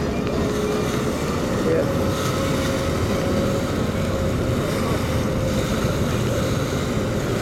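Tour boat's engine running steadily.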